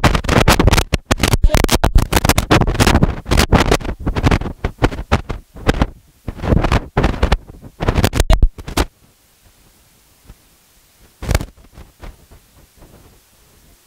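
Loud rough crackling and rumbling on a handheld microphone, coming in quick uneven pulses for about nine seconds, then dying away apart from one short crackle a couple of seconds later.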